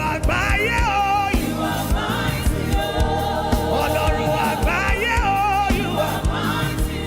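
Gospel worship music: voices singing over a band with a steady drum beat.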